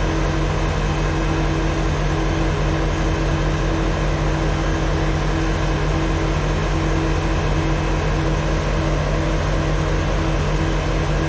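The EMD two-stroke diesel engine of an N class locomotive, idling steadily while the locomotive stands still, with a low, even throb and a pulsing hum.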